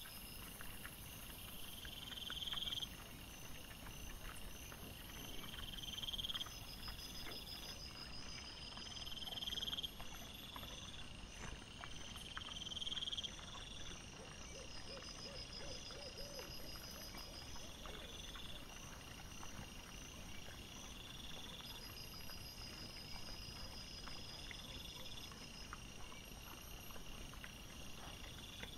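Night insects chirping: a loud rising chirp repeats about every three and a half seconds over steady high trills. Faint scattered clicks and rustles run underneath, and about halfway through there is a short run of low pulsed calls.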